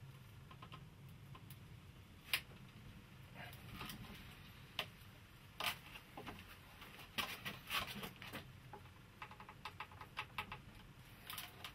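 Faint knocks, scrapes and clicks of a thin brass tube being pressed by hand around a wooden bending form on a plank, with one sharp click about two seconds in and a quick run of small ticks near the end.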